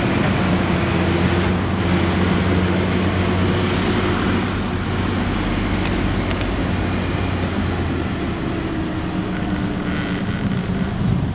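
Freight train rolling past: a steady rumble and clatter of the cars on the rails, with a steady low engine hum underneath.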